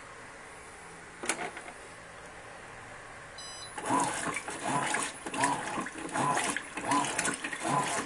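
Electrolux Ecologic LEC12 top-load washing machine resuming agitation: after a click about a second in, the agitator starts up about four seconds in and churns the water and laundry in the tub with a regular sloshing stroke, roughly two strokes a second.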